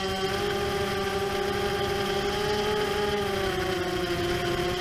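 ImmersionRC Vortex 250 Pro racing quadcopter in flight: its four brushless motors and propellers make a steady whine, heard from the camera on board. The pitch dips slightly about three seconds in as the throttle eases.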